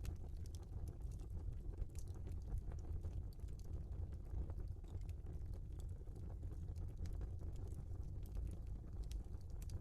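Wood fire burning in a fireplace: a steady low rumble of flames with scattered crackles and pops from the burning logs.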